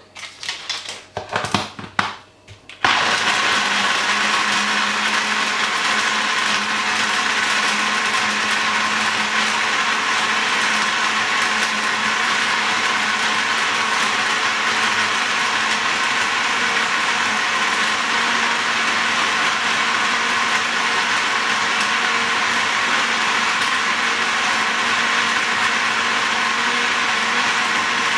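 A few sharp knocks, then about three seconds in a countertop blender's motor starts and runs steadily at one speed, blending raw peanuts and oats with liquid into a smooth drink.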